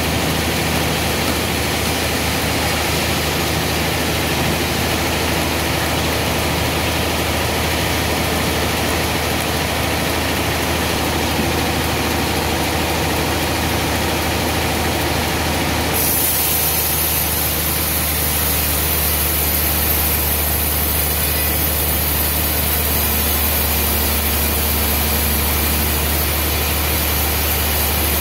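Large band sawmill running steadily as it saws a trembesi (rain tree) log: a constant low machine hum under a wide hiss. The hiss turns sharper about sixteen seconds in.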